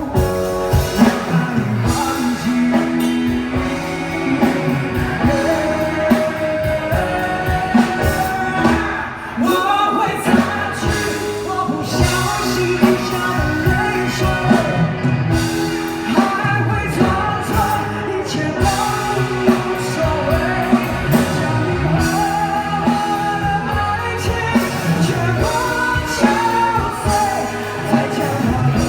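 A woman singing a Mandarin rock ballad live, backed by a band.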